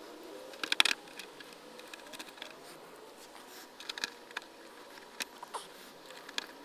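Small hand-work clicks and taps as a bolt and nut are fitted through a fender bracket: a quick cluster of sharp clicks about a second in, then scattered lighter ones. No drill is running.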